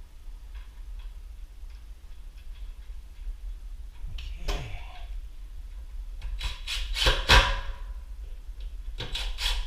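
Light ticking, then a sliding scrape and several sharp knocks and clacks of wooden cabinet doors and drawer hardware being handled, loudest about seven seconds in and again near the end.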